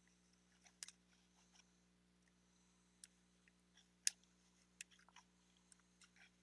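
Near silence broken by scattered light clicks and taps, the sharpest about four seconds in. The clicks come from small craft supplies and their packaging being handled on a table.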